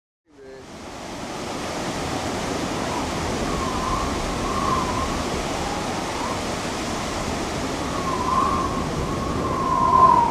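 Steady rush of river water, fading in from silence at the start, with a few wavering whistle-like calls over it, the loudest near the end.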